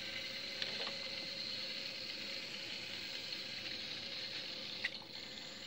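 Bachmann HO-scale Emily model locomotive running along the track under DCC control, its motor driven by a Digitrax DZ126 decoder: a steady hum and whine of the small motor and gears with the wheels rolling on the rails. Two light clicks, about a second in and near the end.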